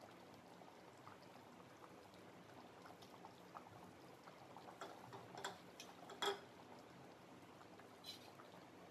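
Thick curry with chana dal dumplings simmering in a steel pot: faint bubbling with scattered small pops, and a sharper click a little after six seconds in.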